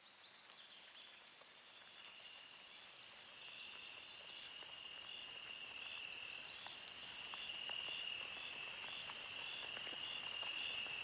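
Crickets chirping in a steady high trill with a regular pulse, growing gradually louder.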